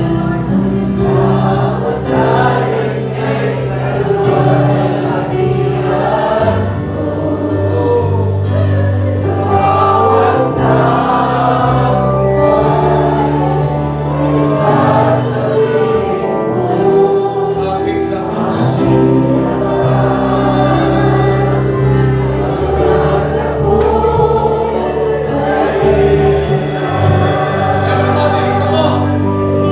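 Worship music: a group singing a gospel hymn or worship song over held, slowly changing bass chords.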